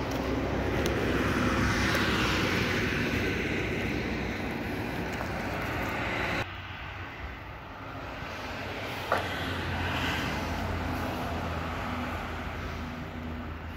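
Road traffic: a vehicle passing swells and fades over a steady hum, then the sound drops abruptly to a quieter steady hum about six and a half seconds in. A single sharp click comes a few seconds later.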